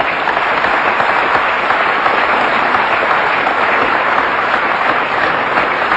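A large audience applauding steadily and loudly.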